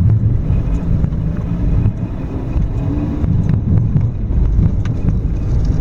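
Car driving along a field track: a steady low rumble of engine and tyres, with a few faint knocks and rattles.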